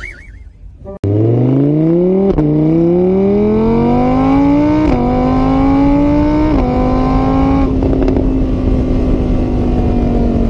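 A car engine accelerating hard through the gears. Its pitch climbs, falls back at three upshifts about 2, 5 and 6.5 seconds in, then holds steady. The sound cuts in suddenly about a second in.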